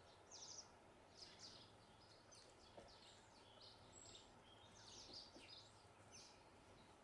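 House sparrows chirping: many short, faint, high chirps in quick, irregular succession.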